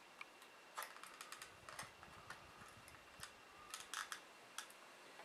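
Faint, irregular small clicks and taps of AAA batteries being pressed into and handled in a handheld battery tester.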